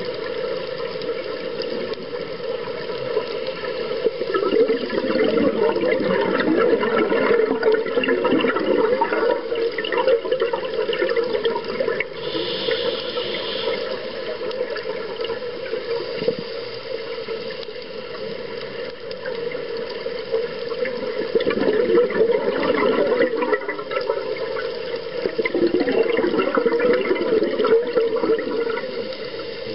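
Underwater sound picked up through a camera housing: a scuba diver's exhaled bubbles gurgling past in surges every several seconds, over a steady underwater wash.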